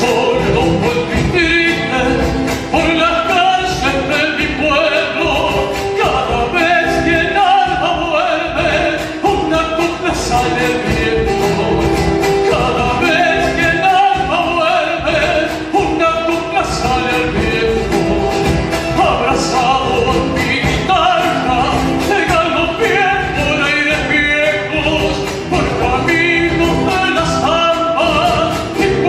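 Latin American folk song: a voice singing over guitar accompaniment.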